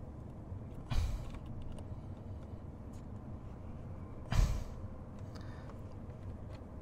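Two short breathy sighs, about a second in and again about four seconds in, over a steady low hum, with a few faint ticks of a screw being worked by hand into a door speaker mount.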